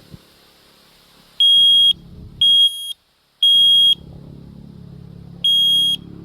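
i9010 smoke alarm sounding its test alarm: loud, high-pitched beeps in the three-beep pattern. The beeps start about a second and a half in and come about a second apart, then a pause, and the next group begins near the end.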